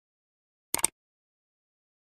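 A short click sound effect, two clicks in quick succession about a second in, marking the like button being pressed.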